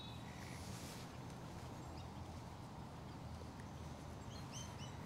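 Quiet outdoor background: a steady low rumble, with a brief hiss about half a second in and a few faint high chirps near the end.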